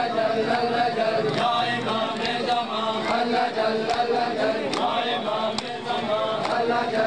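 Mourners chanting a noha in unison, with the steady rhythmic slap of hands on bare chests (matam), a little more than one slap a second.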